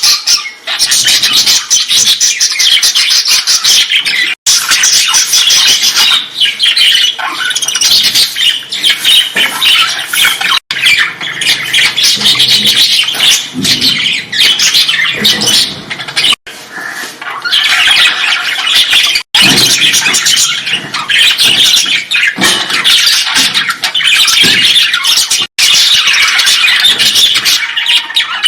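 A colony of birds calling and squawking, a dense, continuous chatter of many overlapping calls.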